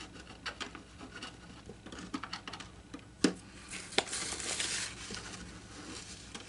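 Light clicks and scrapes of a thin steel feeler gauge worked into the glued seam at the edge of an acoustic guitar's top, with a sharp click about three seconds in and another a moment later. Then a paper towel rustles and rubs across the wood, wiping away excess glue.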